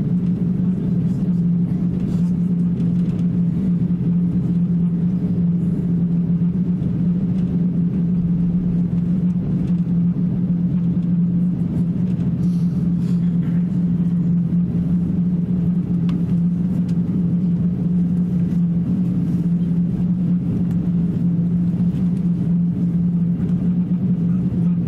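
Steady low cabin drone of an Airbus A350-900 taxiing under its own engine power, with a constant low hum throughout.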